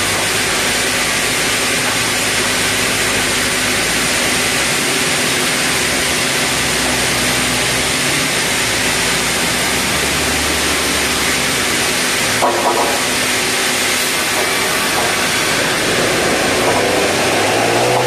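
Sawmill band-saw headrig running steadily without cutting, a loud even mechanical noise with low hums under it. A brief knock comes about twelve seconds in, and near the end a rising whine begins.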